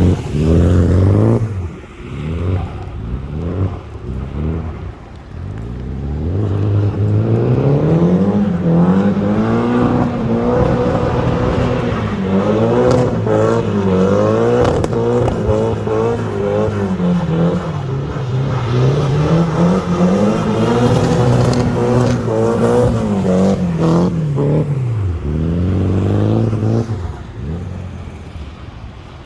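Car engine revving up and down over and over as the car spins doughnuts on an icy parking lot, its drive wheels spinning on the ice. The engine note fades near the end.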